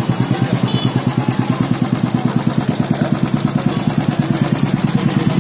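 Royal Enfield single-cylinder motorcycle engine idling steadily, a regular beat of about eight firing pulses a second.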